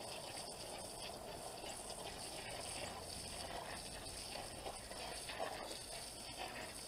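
Faint trickling and bubbling of water from a garden hose running onto muddy ground, steady throughout.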